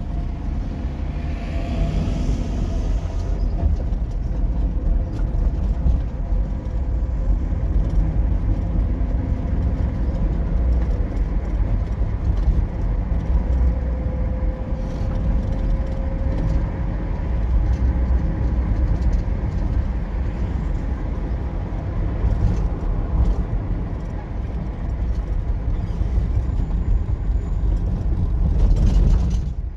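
Steady low rumble of engine and road noise, heard from inside a moving road vehicle, with a brief hiss about two seconds in and a faint whine that rises and falls midway.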